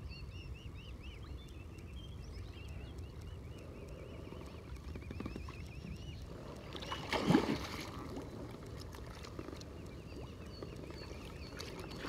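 Water lapping and sloshing around a float tube, with a songbird singing in the background for the first few seconds and a brief louder sound about seven seconds in.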